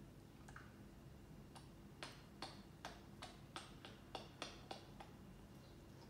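African grey parrot clicking, a run of about ten short clicks at two to three a second that starts about a second and a half in and stops near the end.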